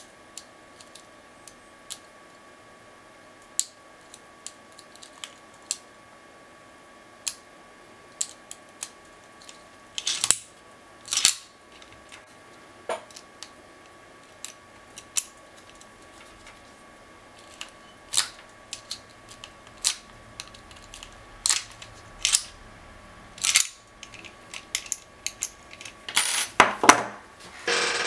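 Steel lock pick and tension wrench working the four pin tumblers of a Master Lock M40D disc padlock: scattered small metallic clicks and ticks, with a few louder scraping clicks from time to time. Near the end, a burst of louder metal clatter.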